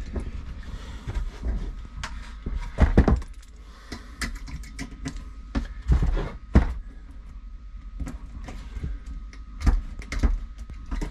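Clicks, knocks and clatter of screwdrivers and small plastic parts being handled and set down on a wooden workbench, with a few louder knocks scattered through.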